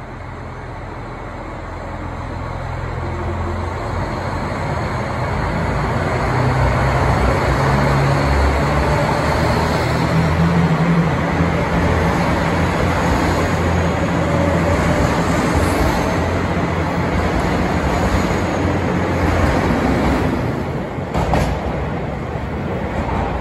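A KiHa 261 series diesel express train (the Lavender set on the Hokuto service) pulls out of the station past a platform. Its underfloor diesel engines work under power and a low engine note holds under the rolling noise of the wheels, growing louder over the first several seconds as the cars go by. A few sharp clicks come near the end as the train draws away.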